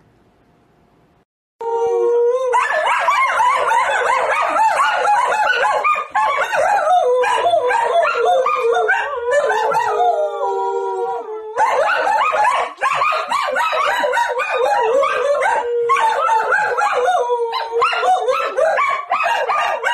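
Several Samoyeds howling together in overlapping, wavering howls. The howling starts about a second and a half in, after a near-quiet moment, and pauses briefly a little past halfway.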